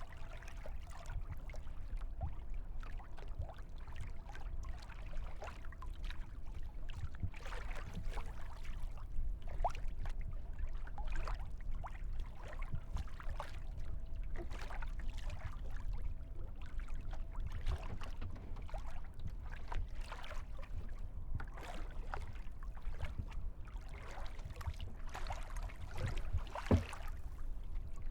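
Water splashing and lapping around a kayak as it is paddled, irregular small splashes over a steady low rumble.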